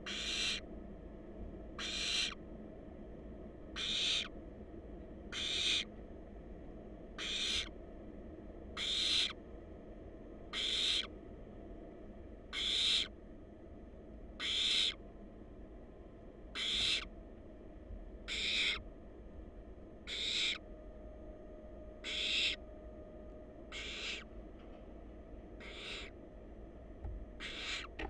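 Barn owl nestlings giving their drawn-out hissing 'snore', about one every two seconds, somewhat fainter in the second half. This snoring hiss is the begging call barn owl chicks make while waiting to be fed.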